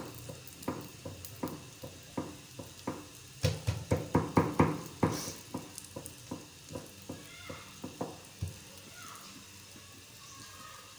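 Paratha frying on a tawa in dalda vegetable ghee: the fat sizzles and crackles with a string of sharp pops, busiest about four seconds in and thinning out toward the end.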